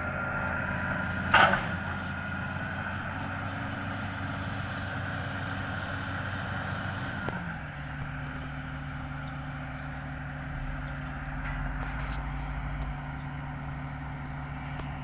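Excavator diesel engine running steadily, then dropping to a lower, steadier speed about seven seconds in. A short loud clank comes about a second and a half in.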